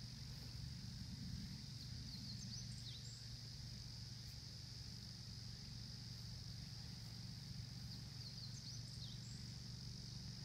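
Steady chorus of insects, a constant high drone, over a low steady hum, with a few short bird chirps about three seconds in and again near nine seconds.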